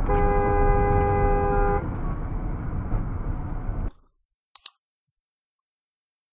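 Car horn sounding for about two seconds over steady road noise from a moving car. The road noise cuts out about four seconds in, leaving near silence broken by two short sharp clicks.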